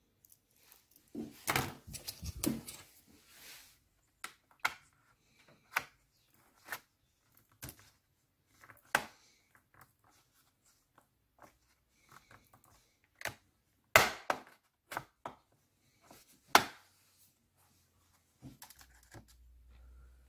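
Irregular sharp plastic clicks, snaps and knocks as the back cover of an HP ProBook 450 laptop is worked loose, its clips and panel being pried and handled. A cluster of clicks comes a little over a second in, and the loudest single snaps come about 14 and 16.5 seconds in.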